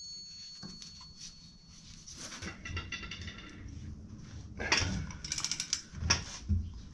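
Hand tools working on a UTV's rear hub: a fading metallic ring, then scattered clicks, rattles and knocks of metal on metal, with a quick run of clicking midway.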